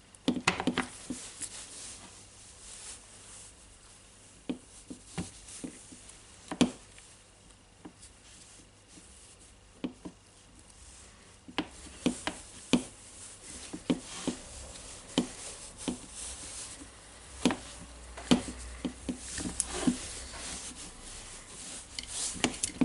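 Hands working wires and parts into the opened plastic housing of a Milwaukee M18 Fuel percussion drill: scattered light clicks and taps with some rubbing, coming more often in the second half.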